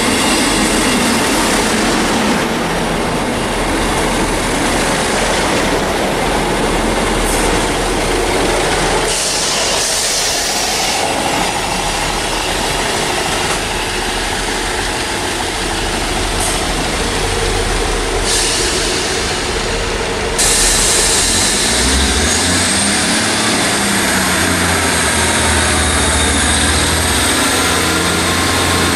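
Class 158 diesel multiple unit running through the station: steady wheel-on-rail rushing with its diesel engines underneath. About two-thirds of the way through, the sound changes suddenly to a Class 158 approaching with a low, steady diesel drone and a thin high squeal that wavers near the end.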